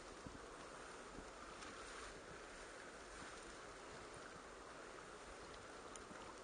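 Faint, steady outdoor wind and water noise with no distinct events.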